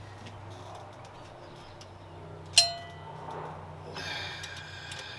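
A metal hand tool clinks sharply against metal once, ringing briefly, about two and a half seconds in, followed near the end by a second, longer stretch of metallic ringing and rattling. A steady low hum runs underneath.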